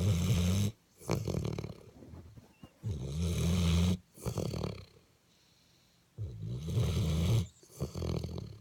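Sleeping dog snoring in a slow, even rhythm: three loud snores about three seconds apart, each followed closely by a shorter, softer one.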